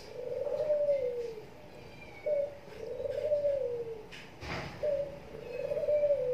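A dove cooing in a repeating phrase, a short note then a longer one that slides down, about every two and a half seconds, three times. A faint knock comes about four and a half seconds in.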